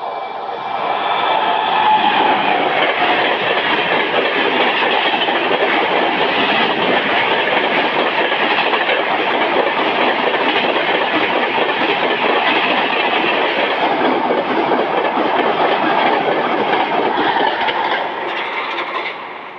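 Passenger train passing close by at speed, its coaches' wheels clattering on the rails in a steady rush that builds over the first two seconds. A train horn dies away in the first second.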